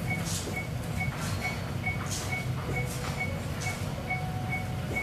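Patient monitor's pulse-oximeter beep sounding steadily about twice a second, keeping time with a child's fast heart rate, over a steady low hum of operating-room equipment.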